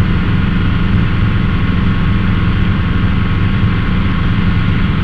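Schweizer 300 helicopter's piston engine and rotors running steadily in cruise flight, heard from inside the cockpit as a loud, even drone with constant tones.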